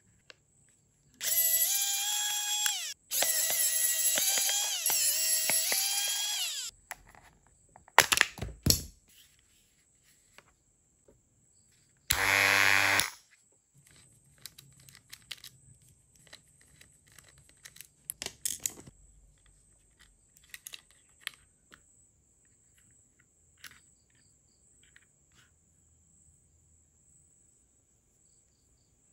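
A small electric motor whirring in several loud bursts, its pitch stepping and gliding, then short clicks and the light clatter of small metal and plastic parts being handled.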